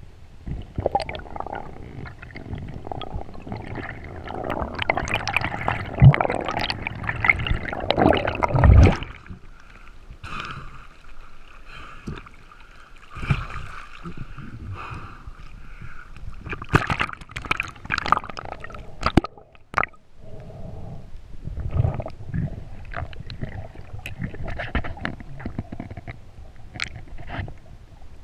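Water gurgling and sloshing around a spearfisher's head camera as he surfaces and dives again, with two loud gushes about six and nine seconds in, then softer sloshing broken by scattered sharp clicks.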